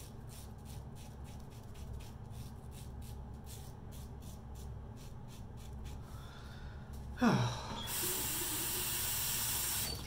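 Gem Pushbutton single-edge safety razor scraping through a day's stubble under shaving cream, in short, regular strokes, about three a second. About seven seconds in there is a sudden louder sound, then tap water runs steadily into the sink to rinse.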